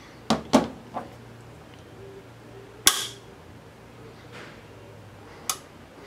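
A non-locking bent-gate carabiner being handled, giving about five sharp clicks: two quick ones at the start, one a second in, the loudest about three seconds in, and a last one near the end.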